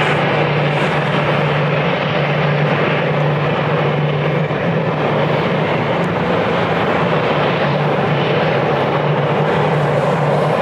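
Airbus A321 jet engines running at takeoff power: a steady, even noise with a constant low hum.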